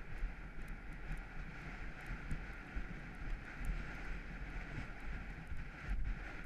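Wind rushing over a rider's GoPro microphone as a horse gallops across grass, with dull, irregular low thumps from the horse's strides.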